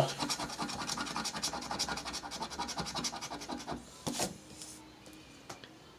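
A scratch-off lottery ticket being scratched in rapid strokes, scraping off the latex coating to reveal the symbols. The scratching stops about four seconds in, followed by a single tap.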